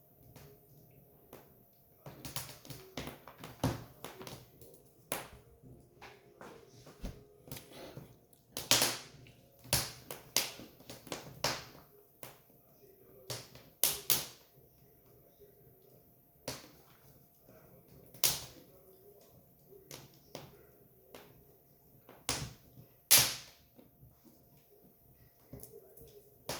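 Firewood burning and crackling, with irregular sharp pops and snaps: about a dozen loud ones scattered among fainter ticks.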